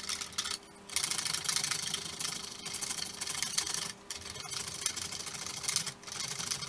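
Block of dark chocolate being grated on a hand cheese grater: quick, continuous scraping strokes, with short breaks about a second in, at about four seconds and at about six seconds.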